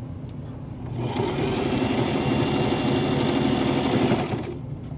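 Domestic electric sewing machine stitching a seam through pinned fabric. It starts about a second in, runs at a steady speed for about three and a half seconds, then stops.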